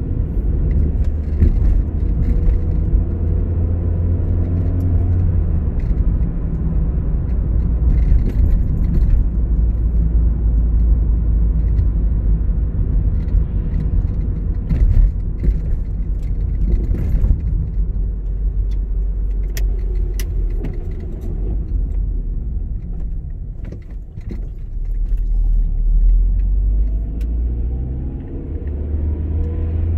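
Car interior noise while driving: a steady low rumble of engine and tyres on the road, with the engine note rising as the car picks up speed, once early on and again a few seconds before the end. Scattered small clicks and rattles from inside the cabin.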